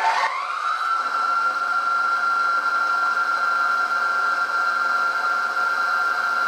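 Milling machine spindle spinning up, its whine rising to speed in the first second, then running steadily with a high whine while a carbide end mill takes a shallow 0.4 mm pass in a mild steel block.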